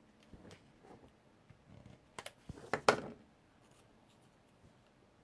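Paper and card being handled and pressed on a craft table: a few faint ticks, then a short cluster of crisp snips and rustles a little past two seconds in.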